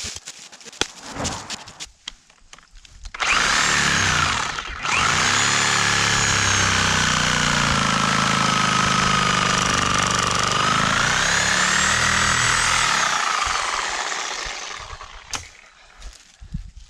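Power saw cutting into a tree stump: a steady motor buzz with a wavering high whine that starts about three seconds in, drops out briefly, then runs on and fades out near the end. A few scattered knocks come before it.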